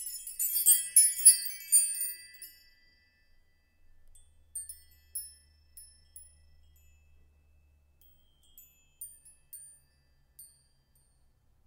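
Logo-animation sound effect: a cluster of bright, high, chime-like tinkles in the first two seconds or so, then a few scattered faint twinkles, with a faint low hum in the middle.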